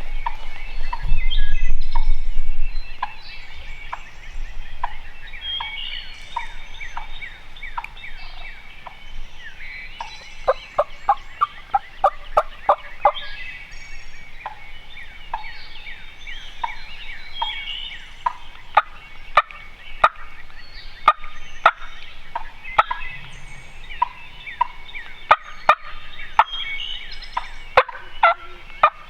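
Wild turkey gobblers gobbling over and over, with a quick run of gobbles about ten seconds in, and songbirds chirping behind them. A low rumble in the first few seconds.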